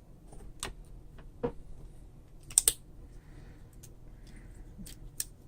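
Scattered light clicks and taps of small repair tools and parts on an iPhone 5s, about six in all, the loudest a quick double click about two and a half seconds in.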